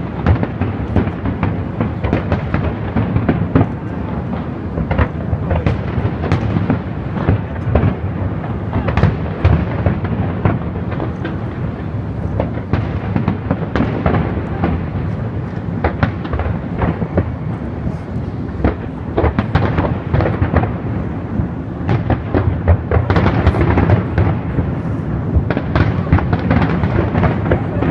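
Distant aerial fireworks going off continuously: many sharp bangs and crackles, one after another over a deep rumble, busiest near the end.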